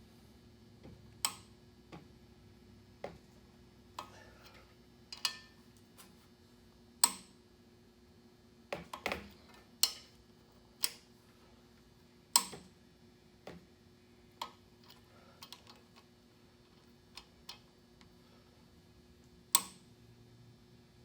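Sharp metallic clicks from a socket wrench and click-type torque wrench tightening flex plate bolts: single clicks about a second or two apart at irregular spacing, with a few quick clusters.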